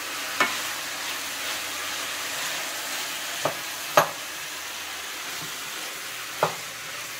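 Diced tofu, carrots, celery and onion sizzling in oil in a stainless steel sauté pan while a wooden spoon stirs them, with four sharp knocks of the spoon against the pan, the loudest about four seconds in.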